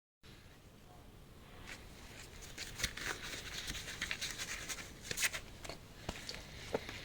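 Irregular small clicks and scrapes of hand-tool work on an engine's flywheel bolts, getting busier from about two seconds in.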